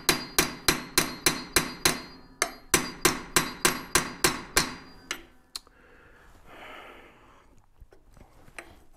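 Quick, regular hammer taps, about three a second, ringing metal on metal, as a prying tool is driven under the RTV-sealed cover on a 1914 Studebaker's full-floating rear axle hub to break it loose. The tapping comes in two runs with a short break, then two lone taps about five seconds in, and stops.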